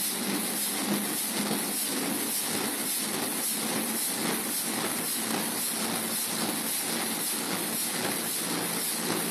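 Large 1933 Burmeister & Wain diesel engine running, a steady, even clatter of repeating strokes over a constant hiss.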